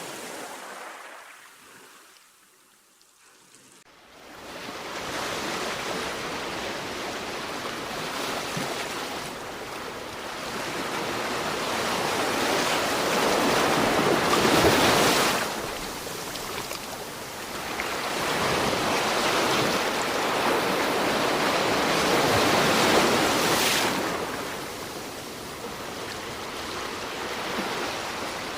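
Sea waves washing ashore: a near-quiet lull for the first few seconds, then the rush of surf comes in about four seconds in and rises and falls in slow swells, loudest about halfway through and again near the end.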